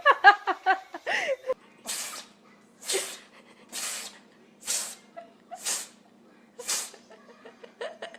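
An animal sneezing six times in a row, short hissing sneezes about a second apart.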